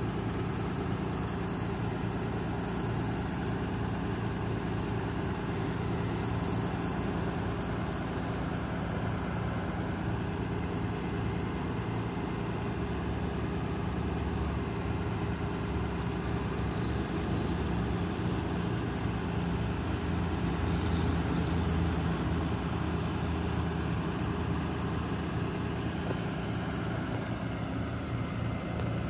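A 2015 Ford F-750 bucket truck's engine runs steadily near idle while the hydraulic aerial boom is being worked. Its low rumble swells somewhat toward the middle, then settles.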